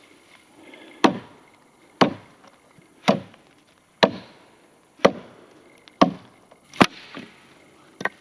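Firewood being chopped: eight sharp blade strikes into a dry log, about one a second.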